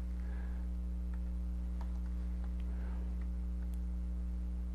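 Steady low electrical hum, like mains hum on the recording, with a few faint scattered clicks.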